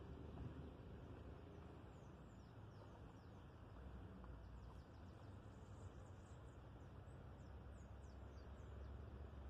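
Near silence: faint riverbank ambience, a low steady rumble with many short, high chirps falling in pitch from small birds.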